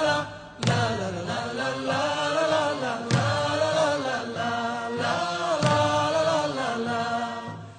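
A woman's voice singing a traditional Rakhine dance song through loudspeakers, in long drawn-out chant-like phrases, three in a row, each starting afresh about every two and a half seconds.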